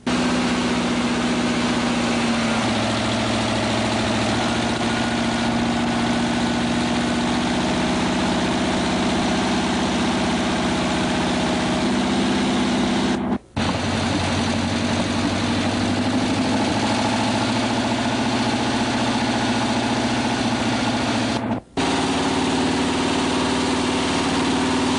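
A vehicle engine idling steadily, with the sound cutting out abruptly for a split second twice, about halfway through and near the end.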